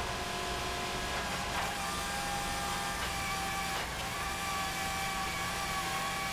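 IMT80 truck-mounted drill rig running steadily: a constant machine drone with several thin, steady whining tones above it.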